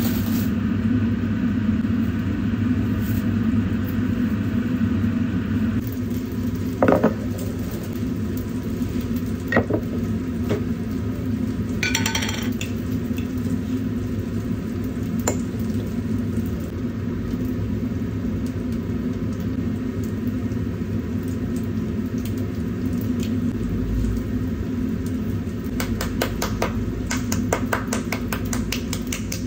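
Dishes and glassware clinking now and then over a steady low hum, with a quick run of clinks near the end.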